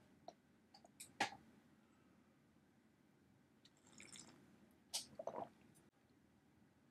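Faint sipping of coffee from a glass cup: a soft slurp about four seconds in and a small mouth-and-swallow noise just after five seconds. A few small clicks, the sharpest about a second in, among otherwise near silence.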